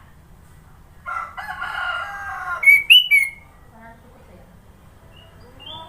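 A rooster-style crow lasting about a second and a half, then a pair of sharp, whistled chirps from a sooty-headed bulbul about three seconds in, with a few soft rising notes near the end.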